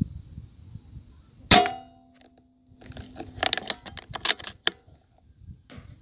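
A single air rifle shot about a second and a half in: one sharp crack with a short metallic ring after it. A quick run of sharp clicks and rattles follows between about three and five seconds in.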